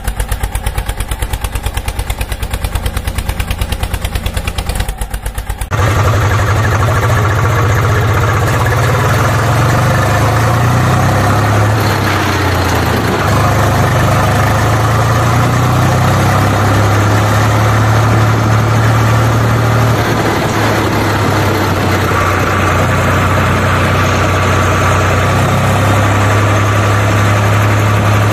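Dubbed tractor engine sound effect: a quick, even chugging for the first few seconds, then, about six seconds in, a sudden switch to a louder, steady engine drone with a wash of noise over it.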